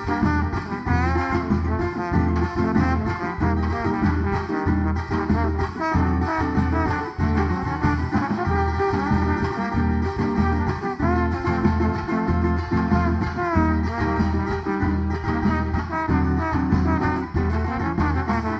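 A band playing an instrumental break in a São João song, without singing: a melody line over a steady beat and bass.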